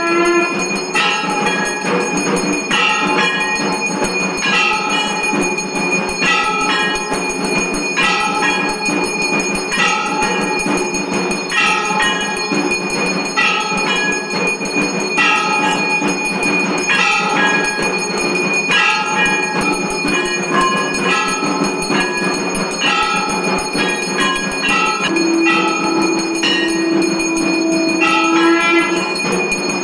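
Brass hand bell (ghanti) rung continuously during an aarti, a steady loud metallic ringing with a pattern that repeats roughly once a second.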